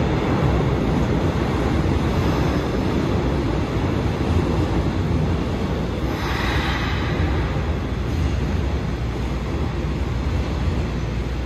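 Hankyu electric commuter train running, heard from inside the car: a steady low rumble of wheels and motors on the track, with a brief rush of hissing noise about six seconds in.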